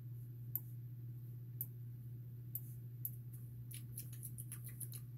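Light clicks of computer keyboard keys: a few single presses about a second apart, then a quick run of typing near the end, over a steady low hum.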